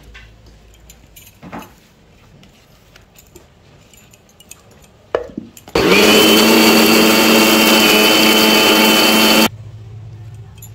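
An electric mixer grinder runs at a steady pitch for about four seconds, grinding fresh coconut with milk into a paste. It starts and cuts off abruptly. Before it there are a few light clicks and a knock.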